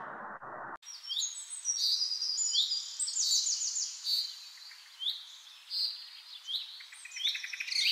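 Birdsong: several birds chirping and trilling in quick, repeated high phrases, starting abruptly about a second in after a moment of faint hiss.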